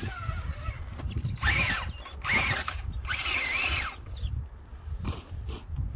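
RC crawler's electric drive motor whining up and falling back in three short throttle bursts, with a steady low rumble underneath.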